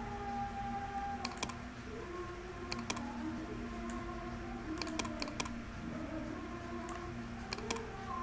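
Computer mouse and keyboard clicks, in small clusters of two to four sharp clicks, as text is selected and copied on screen, over a faint background with sustained tones.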